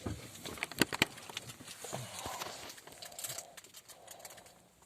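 A few sharp clicks and knocks with faint rustling, the loudest pair about a second in: handling sounds in a car cabin.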